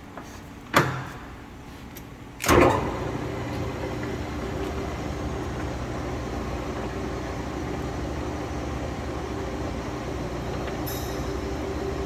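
A sharp clunk about a second in, then another clunk at about two and a half seconds as the Mori Seiki gap bed engine lathe starts up, after which its spindle and 5 HP main motor run with a steady hum at a low speed.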